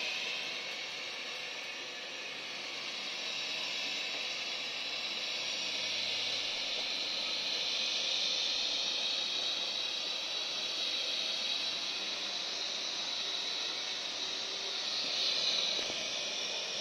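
Alfawise V10 Max robot vacuum cleaner running on carpet: a steady high hiss from its suction fan, swelling slightly near the end.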